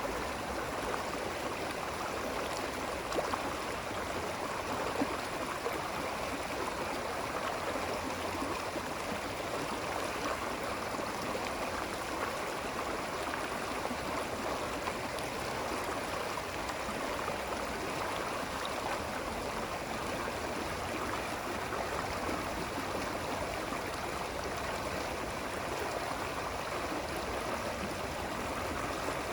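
Running water flowing steadily, with a continuous rushing and gurgling.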